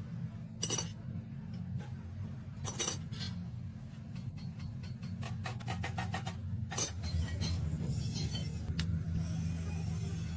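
Metal clinking and knocking as tools and steel gearbox parts are handled: separate clinks, a quick run of light ticks about two-thirds in, and a few sharper knocks, over a steady low hum.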